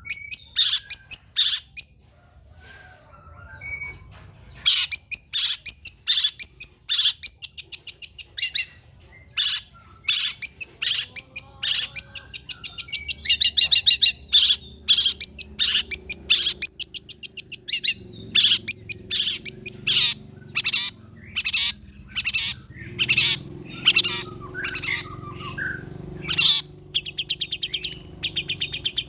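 Long-tailed shrike (cendet) singing: a fast, chattering song of rapid repeated sharp notes and quick trills, delivered in dense runs with brief pauses.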